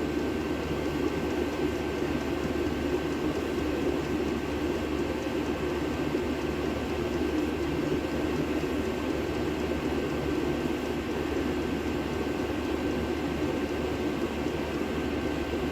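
Diesel air heater running steadily at a lowered speed setting: an even blower-and-burner roar with a low hum and a faint steady whine.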